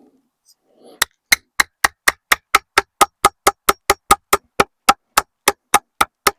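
Hammer driving nails into the timber of a wooden compost bin: a steady run of about twenty sharp strikes, roughly four a second, starting about a second in. The nails are poor ones that are not going in well.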